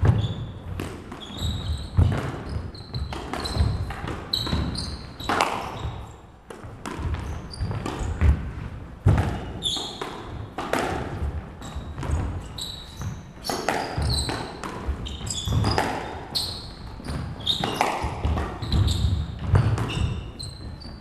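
Squash doubles rally: the ball struck by rackets and smacking off the court walls again and again at an uneven pace, with players' shoes squeaking and thudding on the wooden court floor.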